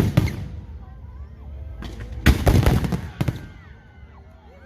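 Fireworks exploding: a loud bang at the very start, then a quick cluster of sharp cracks from about two to three seconds in, dying away near the end.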